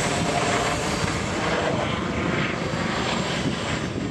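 Airbus Helicopters EC145 T2, with its two Arriel 2E turboshaft engines, banking in flight overhead: a steady rotor and turbine noise with a fast chopping beat from the main rotor.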